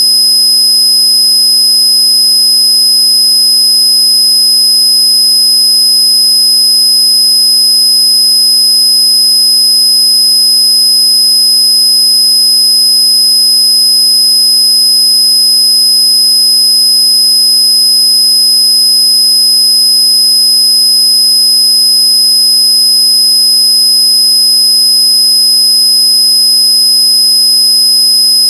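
Loud, unchanging electronic tone made to annoy noisy neighbours: a low buzzing tone with many overtones and a piercing high whistle on top, held steady without a break.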